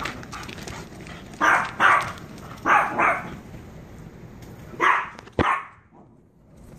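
A dog barking in play, about five short barks in quick pairs, with a sharp knock about five and a half seconds in.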